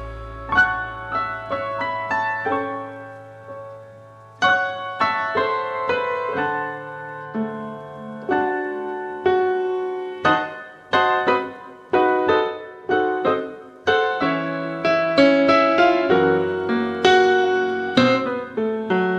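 Background music: a solo piano plays a gentle melody over sustained chords, each note struck and ringing away.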